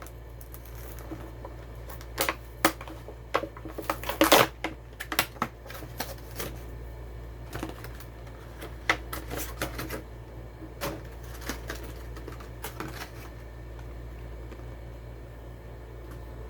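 Die-cast car blister packs being pried open by hand: irregular plastic clicks and crackles, thickest in the first few seconds and sparser after.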